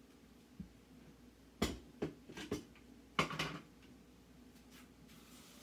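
Kitchenware being handled on a kitchen counter: a faint knock about half a second in, then a run of sharp knocks and clinks, and a longer clatter just after three seconds.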